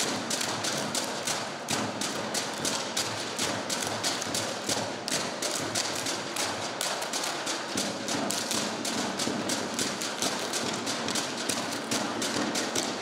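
A seated group dance: many hands clapping and slapping in unison, a fast, steady rhythm of sharp strikes at about four a second.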